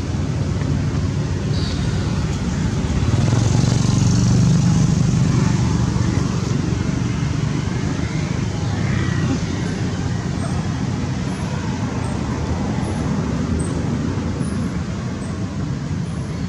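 Steady low rumble of road traffic, with no single event standing out.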